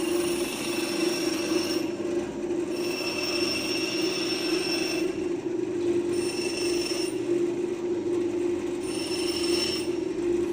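Pedestal bench grinder running with a steady hum while a workpiece is pressed against the grinding wheel four times. Each contact makes a high screech lasting about one to two seconds.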